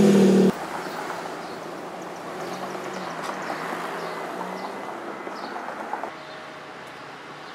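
A car's engine runs loud at the tailpipe and cuts off abruptly half a second in. It gives way to steady street traffic noise as the car drives off, with a faint low engine hum in the middle. The noise drops quieter about six seconds in.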